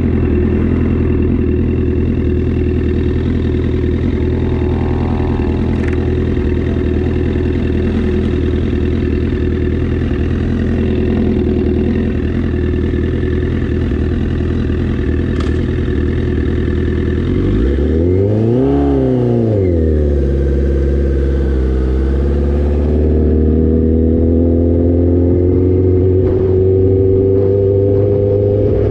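Motorcycle engine idling steadily, then a quick rev that rises and falls about two-thirds of the way through, and the engine pulling away with its pitch climbing near the end.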